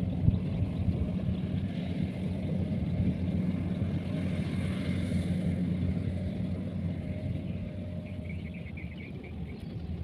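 Kubota combine harvester's diesel engine running steadily under load as it cuts rice: a continuous low hum with a rumble, growing a little fainter over the last few seconds.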